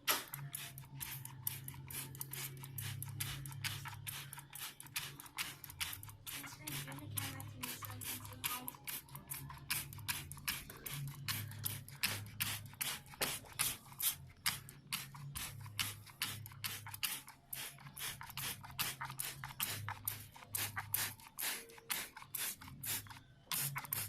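Hand trigger spray bottle squirting cleaning solution into an air conditioner's evaporator coil: quick, repeated squirts, a few each second.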